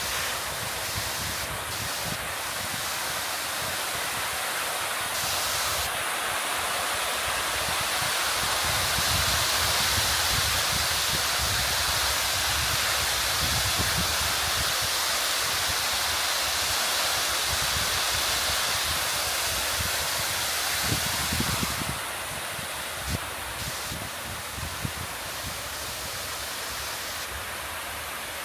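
Kiyotaki waterfall heard from close beneath it: a steady, dense rush of falling water, easing slightly about three-quarters of the way through. Irregular low buffets of spray-driven wind hit the microphone.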